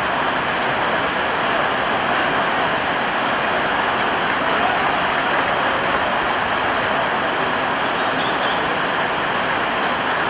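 A steady, even rushing noise with no distinct events or changes.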